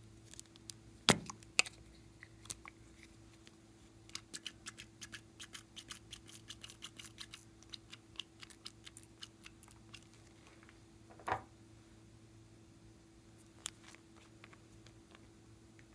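Small hard-plastic clicks and taps as plastic toy containers and caps are twisted open and handled: two sharper clicks near the start, a quick run of small clicks for several seconds in the middle, then a few single clicks, over a faint steady hum.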